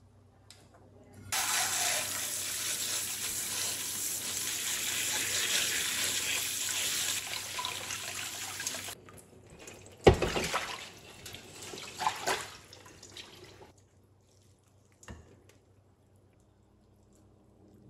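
Kitchen tap running in a steady rush onto cooked noodles in a metal mesh strainer set in a steel bowl, shutting off suddenly after about eight seconds. Then a sharp metal knock and some clatter as the strainer and bowl are handled.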